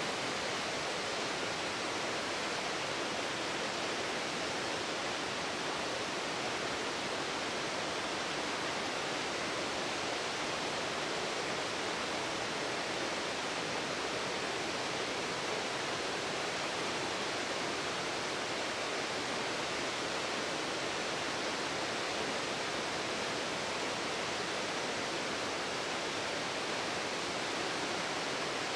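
Taughannock Creek pouring over a wide cascade of low stepped rock ledges: a steady, even rush of falling water.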